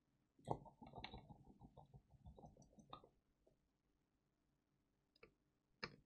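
Light clicking and rattling of small tools being handled at a soldering bench for about two and a half seconds, then two single clicks near the end. Otherwise near silence.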